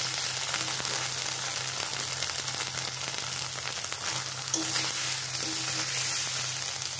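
Ground ghetkol paste sizzling in oil in a black iron kadai while a flat steel spatula stirs it, with occasional scrapes and clicks of the spatula on the pan. It is the final frying stage: the water has cooked off and the paste is frying in its own released oil.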